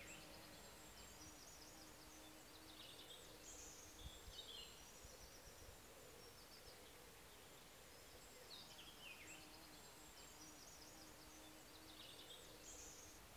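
Faint birdsong: small birds chirping and trilling in short, quick falling phrases over a near-silent outdoor background, with a faint low repeated note underneath.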